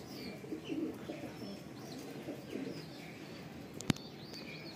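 Domestic pigeons cooing, with scattered higher-pitched chirps and one sharp click about four seconds in.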